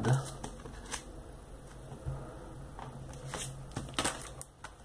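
CDs being handled on a table: a CD in a clear plastic sleeve picked up and put aside, with plastic rustling and a few light clicks and knocks.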